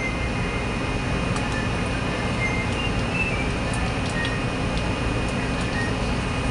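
Steady machine hum from a running room appliance, even and unbroken, with a few faint short high chirps now and then.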